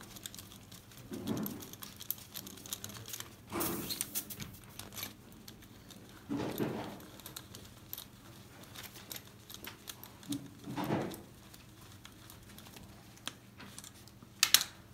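Gloved hands working a tool at an engine's cylinder head: rustling and small metallic clinks, with several short bursts of handling noise and a sharp metal click near the end.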